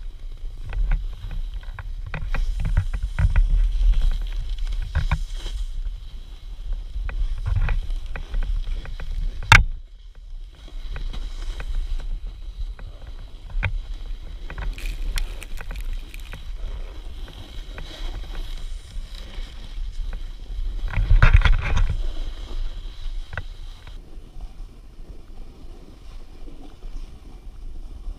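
Snowboard scraping and carving through snow, heard through a pole-mounted GoPro with wind rumble on the microphone and small knocks from the mount. A sharp knock comes just before ten seconds in, and a louder rush of scraping about three quarters of the way through.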